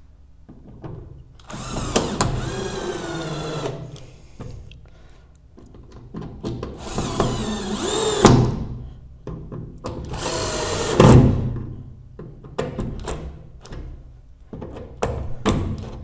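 Power drill-driver running in three short bursts of a second or two each, its motor whine shifting in pitch, as it drives screws back into the washing machine's panel; lighter clicks and knocks between the bursts.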